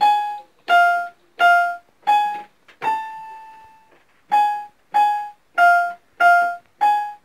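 Electronic keyboard playing a slow single-note melody, about ten notes, each struck and fading away, with one longer held note about three seconds in.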